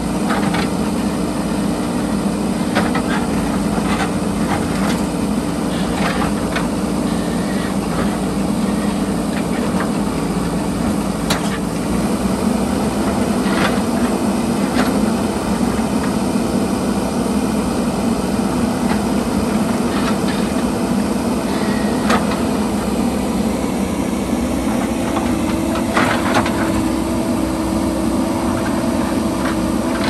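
JCB backhoe loader's diesel engine running steadily, with scattered knocks and cracks of the bucket striking and breaking rock.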